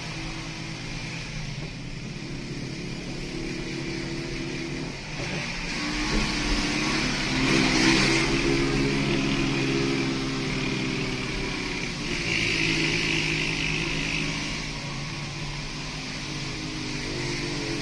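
Motorcycle engine of a kulong-kulong (motorcycle with sidecar) running under load as it tows a car, heard from inside the towed car. Its pitch rises and falls, growing louder around the middle, over steady road noise.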